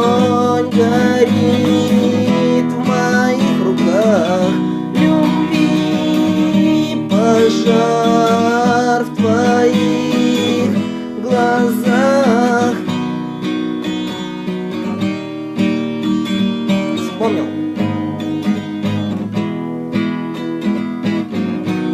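Acoustic guitar strummed in steady chords, with a man's voice singing long held notes over it for roughly the first half; the guitar then carries on alone and grows quieter near the end as the song finishes.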